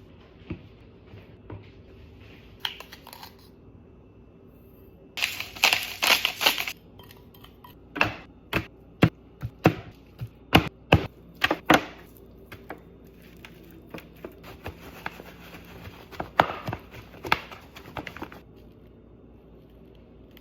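Kitchen food preparation: a short burst of dense noise about five seconds in, then a run of sharp knife strikes on a cutting board, roughly one to two a second, then softer handling and clatter near the end.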